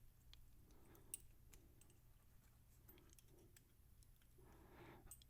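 Near silence with faint, scattered clicks of a lock pick working the pins of a Brinks 50 mm padlock, one click about a second in a little louder.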